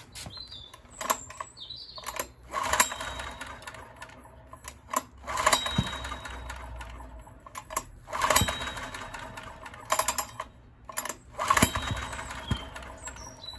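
Honda EX1000 generator's recoil starter pulled four times, about every three seconds, each pull a short rattling whirr. The engine, which faltered under too much load, does not catch between pulls.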